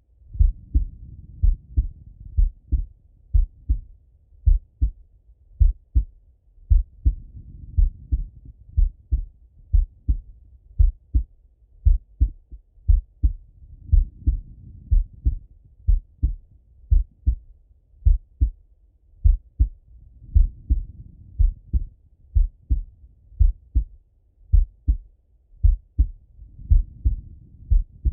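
A man's slow, relaxed heartbeat heard through a stethoscope: steady, even pairs of deep lub-dub thumps. A soft rush of breathing comes through about every six seconds.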